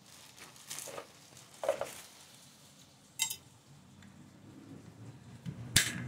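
Hands fitting a washing machine's plastic drain pump onto its rubber hoses: a few scattered light knocks and clicks, with a sharp click and a brief ring about three seconds in and another sharp click near the end.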